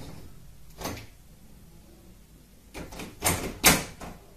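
A metal door lever handle clacking and the door rattling as a cat paws and pulls at the handle: a few sharp knocks, the loudest two close together near the end.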